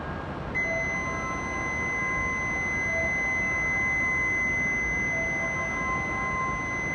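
Steady high electronic warning tone that starts about half a second in and holds unbroken: the signal that the shinkansen's doors and the platform gates are closing. It sounds over a steady low rumble.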